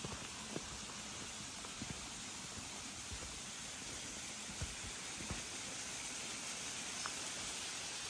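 Steady, even outdoor hiss with a few faint soft knocks scattered through it.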